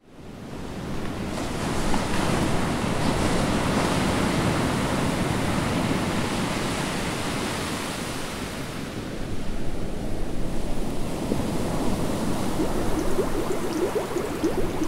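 Ocean waves and surf rushing steadily, fading in from silence over the first couple of seconds. Bubbling gurgles begin near the end.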